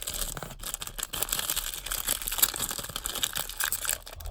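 A LEGO minifigure blind bag crinkling and rustling as it is handled and its contents are tipped out, with irregular small crackles.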